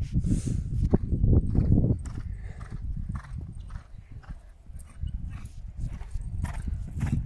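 Pony's hooves thudding on a sand arena surface as it canters, with a loud low rumble over the first two seconds.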